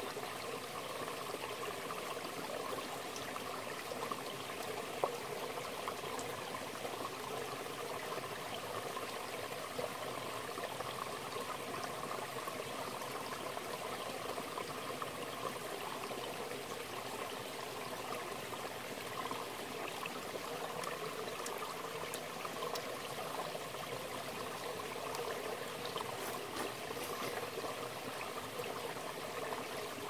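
Mountain stream flowing steadily over rocks, an even rush of water.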